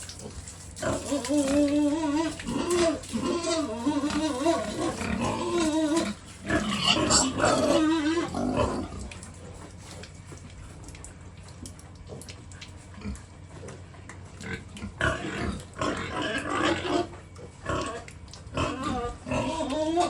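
Pigs grunting and calling. The calls are loud and wavering for the first eight seconds or so, then die down, with a few short calls near the end.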